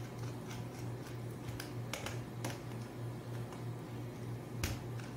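A handful of irregular small clicks from a screwdriver and wire working a plastic contactor's terminal screws while a coil wire is fastened, the sharpest near the end. A steady low hum runs underneath.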